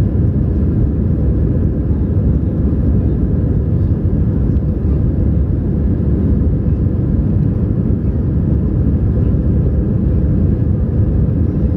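Steady low rumble of an Airbus A320-family airliner's jet engines at climb power after takeoff, heard inside the cabin from a seat over the wing.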